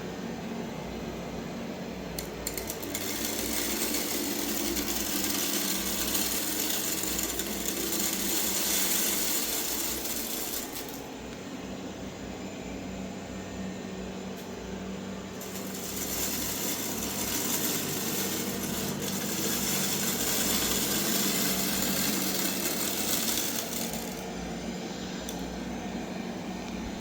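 Robot vacuum running over scattered rice, its motor humming steadily while grains rattle through the brushes and into the bin. The hard rattling hiss swells twice, for about eight seconds each time, as it passes through thicker patches of rice.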